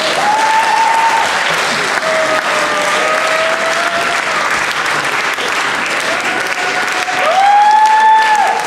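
Theatre audience applauding steadily, with a few long held notes of music over it, the loudest near the end.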